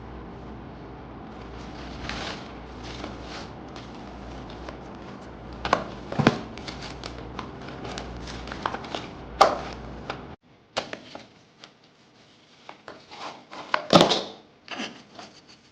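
Beauty products and their packaging being handled and unwrapped: rustling and crinkling with scattered sharp clicks and taps. A steady low hum underneath stops abruptly about ten seconds in.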